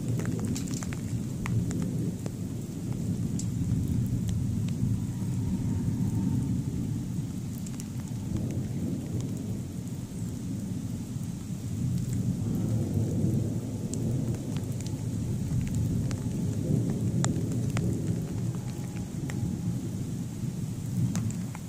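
Thunderstorm: thunder rumbling on and off in long swells, over steady rain with scattered sharp ticks of drops.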